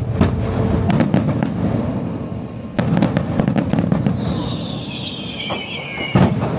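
Aerial fireworks display: a dense run of crackling and booming shell bursts. From about four seconds in, a whistle falls in pitch for about two seconds and ends in a loud sharp bang.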